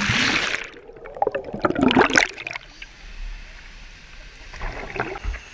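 Loud splash as a boy and an action camera plunge into pool water, followed by muffled underwater bubbling and gurgling about a second later. Weaker water sounds come near the end as he surfaces.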